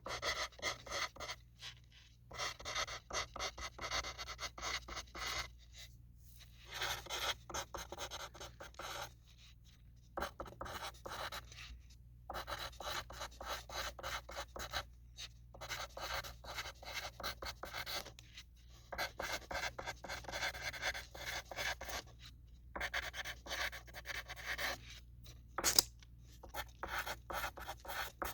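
Pencil writing on a sheet of paper: runs of quick scratchy strokes broken by short pauses, with one sharp tap near the end.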